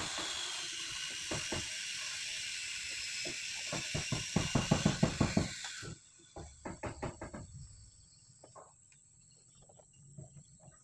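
A 2B pencil rubbed quickly back and forth over paper laid on a stamped engine number, a scratchy, rhythmic scraping. The strokes are loudest and fastest around four to five seconds in, then turn fainter and scattered after the steady hiss cuts off about six seconds in.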